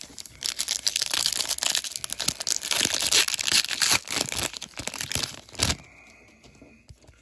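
Plastic wrapper of a retail sports card pack crinkling and tearing as it is ripped open: a dense crackle lasting about five and a half seconds, stopping near the end.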